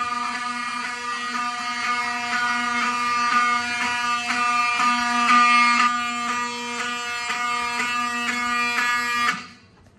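Fire alarm horn sounding a continuous, buzzy tone whose upper overtones flutter rapidly. It cuts off abruptly near the end.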